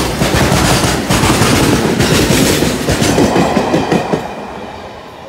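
A BCNAM freight train's covered wagons rumbling and clattering past at close range, their wheels knocking over the rail joints. About four seconds in the tail of the train, with its brake van, goes by and the sound dies away.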